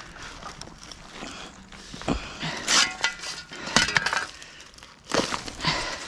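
Irregular clinks, knocks and scrapes of hand digging work among rocks and soil. The sharpest knocks come a couple of seconds in, around the middle and about five seconds in.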